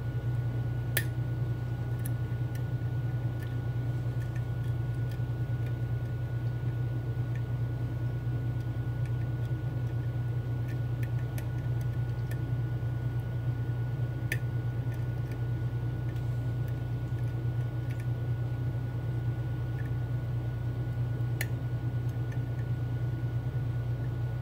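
A steady low hum runs throughout. Over it come a few sharp, isolated clicks, about a second in, midway and near the end, from a lock pick and tension tool working the pins of a Mul-T-Lock Interactive dimple lock.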